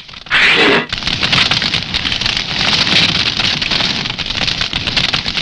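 Crackling fire sound effect: a dense, steady crackle of flames, after a short loud burst about half a second in.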